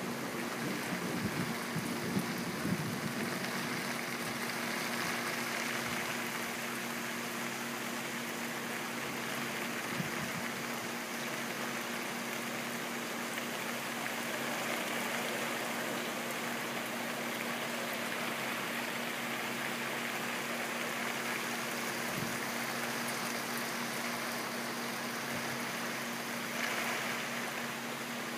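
Heavy thunderstorm rain pouring steadily, a constant even hiss with a faint steady hum beneath it and a few light crackles in the first seconds.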